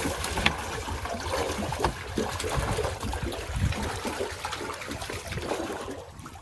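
Water splashing and sloshing, with many small irregular splashes, dying down near the end.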